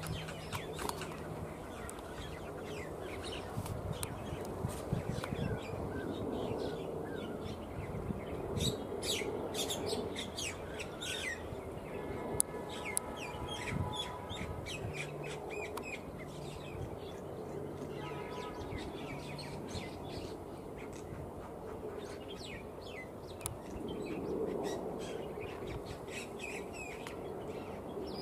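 Small birds chirping again and again, short high notes scattered over a steady outdoor background noise.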